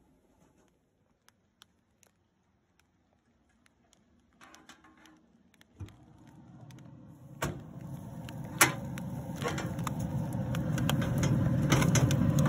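Near silence at first. From about halfway a steady low rushing noise from a pellet smoker with its lid open grows louder, with a few sharp clicks and knocks as food is set on the grill grate.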